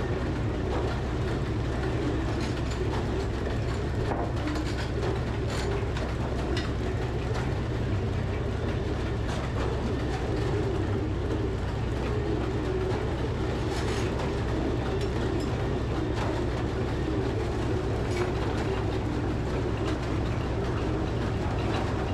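Frick sawmill running: a steady low drone of machinery with irregular clicks and knocks scattered through it.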